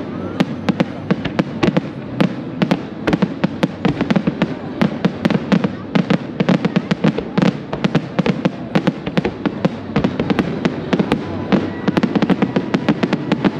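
Fireworks display: aerial shells bursting in a rapid, irregular barrage of loud bangs and crackling reports, several a second without a break.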